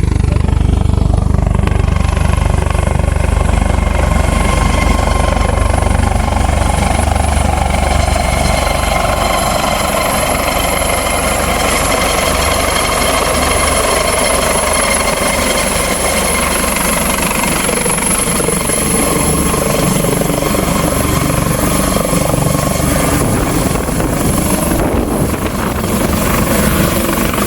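Helicopter running close by: a steady high turbine whine over the heavy low churn of the rotor.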